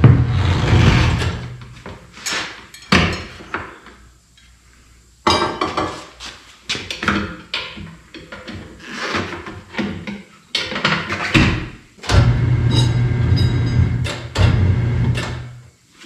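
Metal tire irons knocking and clanking against the rim and a manual tire changer as the bead of a stiff motorcycle radial tire is worked off the rim. The clanks come irregularly, with a short lull partway through, and a low steady hum runs under them near the start and again toward the end.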